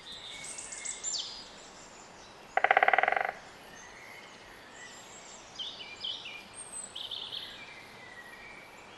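A woodpecker drumming on a tree: one rapid, even burst of strikes lasting under a second, about two and a half seconds in. Small songbirds chirp and sing high-pitched around it.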